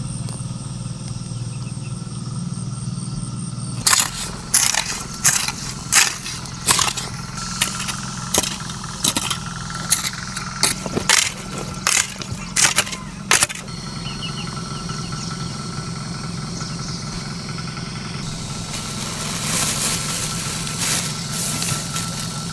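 A small engine runs steadily throughout. Between about four and thirteen seconds in, a series of about fifteen sharp knocks comes roughly once or twice a second.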